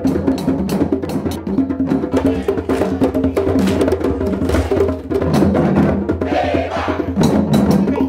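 A group playing African hand drums together in a fast, busy rhythm, with voices singing along in the second half.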